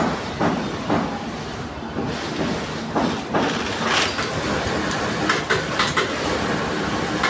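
Industrial sewing machine stitching leather glove material: a steady mechanical clatter with irregular clicks and knocks.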